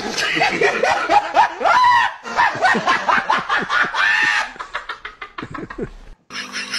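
A man laughing hard in a long run of high-pitched bursts, thinning out into short breathy snickers near the end.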